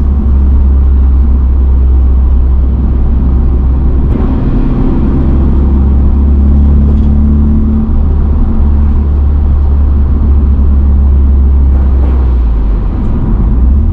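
Turbocharged 2.0-litre B48 four-cylinder of a BMW 120i on a Stage 2 tune, heard from inside the cabin while driving: a steady low rumble of engine and road noise.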